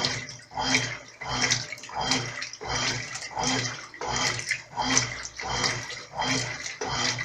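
Brastemp Clean 5 kg top-loading washing machine agitating a load of clothes in water on its delicate setting. The agitator swishes back and forth in a steady rhythm, about one stroke every three quarters of a second, each stroke with a motor hum and a slosh of water.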